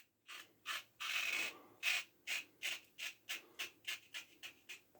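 1907 Ever Ready single-edge safety razor with a fresh carbon blade scraping through lathered stubble in about a dozen short strokes, roughly three a second, with one longer stroke about a second in.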